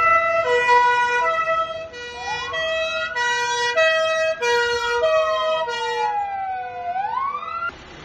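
Police vehicle sirens: one steps between pitches about twice a second, and a second wailing tone joins about two seconds in, rising, falling slowly, then sweeping up again. Both cut off abruptly near the end.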